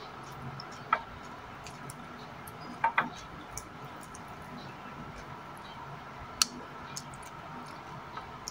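A few small sharp clicks and taps, about a second in, twice near three seconds and once past six seconds, as fried fish is picked apart by hand over ceramic bowls, over a faint steady hum.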